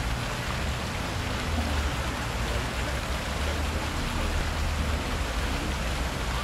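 Ground-level fountain jets splashing steadily onto a wet paved basin, with a low rumble underneath.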